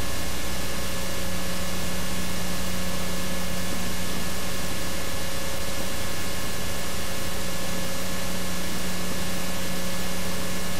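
Steady hiss with a constant electrical hum and nothing else, unchanging throughout: the noise floor of an old camcorder tape recording.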